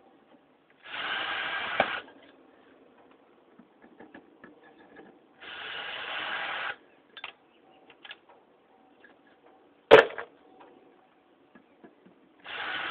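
A power drill running in short bursts of about a second each, backing loosened screws out of a cast aluminum ceiling fan housing: twice, with a third burst starting near the end. A single sharp metallic clack about ten seconds in.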